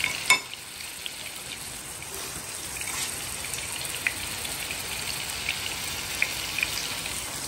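Tofu frying in hot oil in a pan: a steady sizzle with scattered pops and crackles, and one short sharp knock just after the start.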